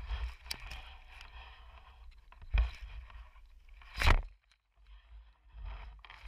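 Rustling through grass and a few short scraping knocks as a person moves along a pond's edge holding a frog gig, over a low rumble of handling noise on the microphone; the loudest knock comes about four seconds in.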